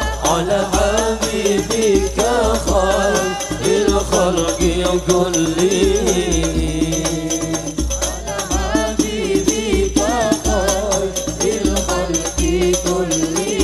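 A sholawat song in gambus style: a singer's melismatic, wavering vocal line over a steady pulsing bass beat and busy hand percussion.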